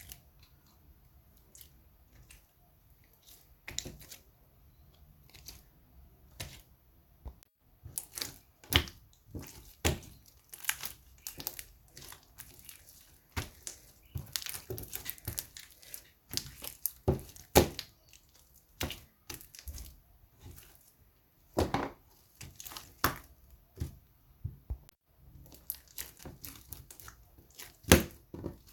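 Slime being squeezed and stretched by hand, making irregular sticky crackles and pops. There are only a few in the first several seconds, then many in quick succession.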